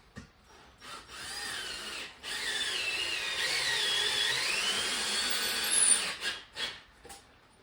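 Cordless drill driving a screw into a concrete wall: a short run, a brief stop, then a longer run of a few seconds, its motor whine rising and falling in pitch as the trigger is worked. Two short knocks follow near the end.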